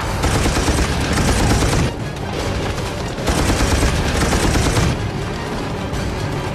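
Two bursts of heavy machine-gun fire from a tripod-mounted, water-cooled machine gun firing blanks, each lasting about a second and a half, the second starting about three seconds in.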